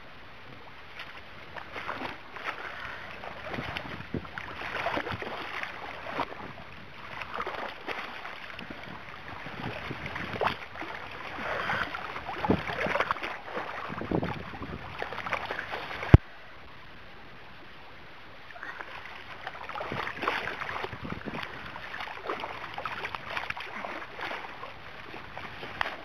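Water sloshing and lapping around a boat in irregular surges. A single sharp click comes about 16 seconds in, followed by a short dropout.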